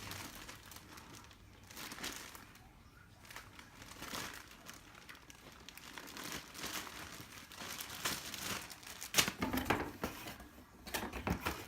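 Packaging crinkling and rustling in bursts as it is handled and crumpled, loudest near the end.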